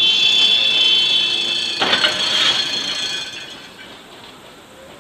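Tram's steel wheels squealing on the rails, a piercing high screech, cut into about two seconds in by a crash as the tram hits a car. The squeal then dies away over the next second or so.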